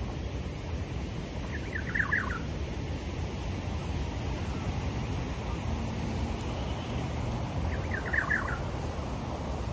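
A bird calling twice, about six seconds apart, each call a quick run of short falling notes, over a steady low rumble and a high hiss.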